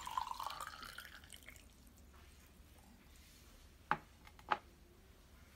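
Hot water pouring into a ceramic mug, the pitch of the splashing rising as it fills, tailing off about a second and a half in. Then two sharp clicks about four seconds in, half a second apart.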